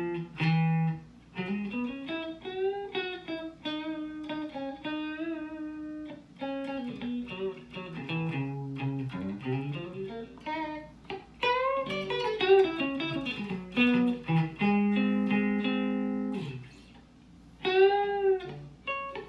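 Fender Mexican Stratocaster electric guitar with Lace Sensor pickups, played as a single-note melodic line with string bends and vibrato, then a few held chords, and a final bent note near the end.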